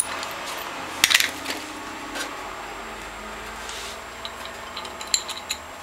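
Metal clinks from a wrench and bolts as the bolts come off the top of a Norwalk juicer's reservoir: one sharp clack about a second in, then a few lighter ticks.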